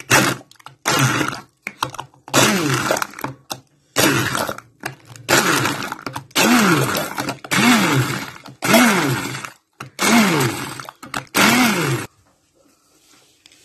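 Electric stick blender run in about ten short pulses, its motor speeding up and dropping off each time as the blade churns strawberries into milk for a purée. The pulses stop about twelve seconds in.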